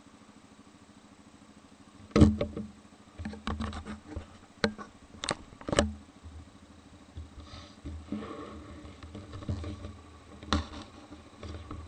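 Yamaha Grizzly 550 ATV's single-cylinder engine running quietly at low speed, overlaid from about two seconds in by irregular sharp knocks and thumps close to the microphone, the loudest right at the start of them.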